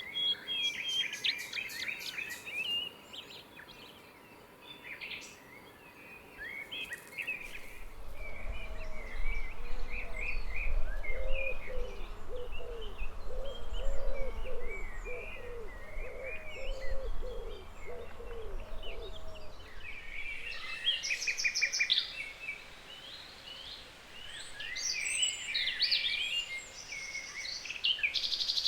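Several songbirds singing and chirping, with short high twittering phrases throughout. From about eight seconds in to about nineteen seconds, a lower run of quickly repeated call notes joins them over a low rumble.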